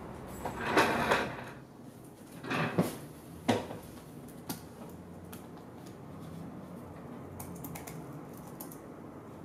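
A person settling into a leather office chair: two short rustling, creaking bursts and a couple of sharp knocks in the first few seconds, then faint scattered clicks of typing on a computer keyboard.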